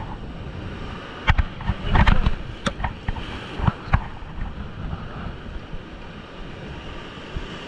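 Rough sea surf washing over rocks, with wind buffeting the microphone. Several sharp knocks or clicks in the first half.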